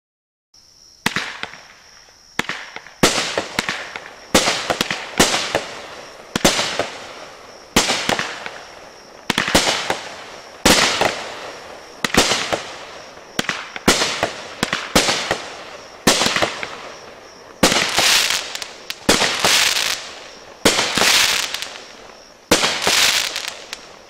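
A 200-gram repeater fireworks cake fires shot after shot, roughly one a second, each a sharp bang that fades away. The last few shots ring out longer.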